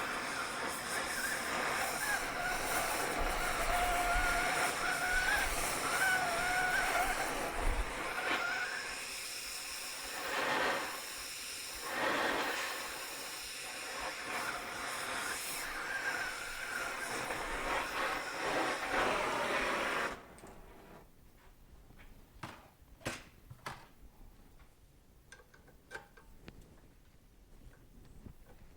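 Gas torch flame hissing with a faint wavering whistle as it heats the rusted-in foot peg boss on a swing arm; it cuts off suddenly about twenty seconds in, leaving faint scattered clicks and taps.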